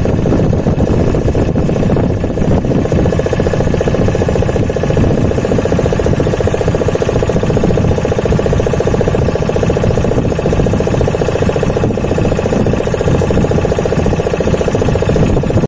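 Motorised wooden boat's engine running steadily with a fast, even beat, heard from on board.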